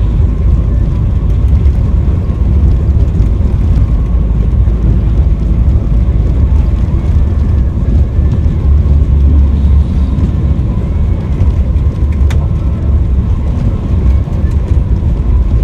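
Bus driving on the road: a loud, steady low rumble of engine and road noise.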